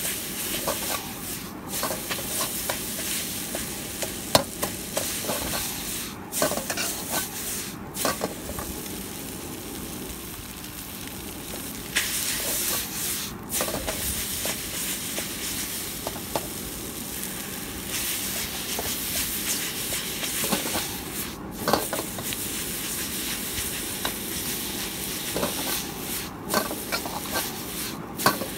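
Noodles sizzling and frying in a hot wok while a metal ladle and spatula stir and toss them, scraping and clanking against the pan in frequent sharp clicks over a steady hiss.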